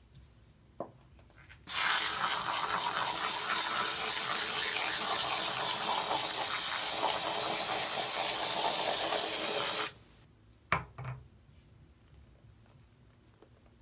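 Aerosol can of foam soap, in fact shaving cream, spraying in one long steady hiss. It starts about two seconds in and cuts off sharply some eight seconds later. A couple of small knocks follow about a second after it stops.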